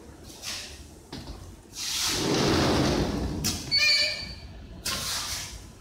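High-frequency PVC welding machine pressing and welding stretch-ceiling film: a loud rushing noise for about a second and a half, then a short squeal and a sharp crack about four seconds in. The crack is the electrode arcing, which the operators put down to dirt on the copper die.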